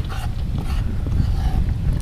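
Wind buffeting the microphone: a steady low rumble, with a few light clicks over it.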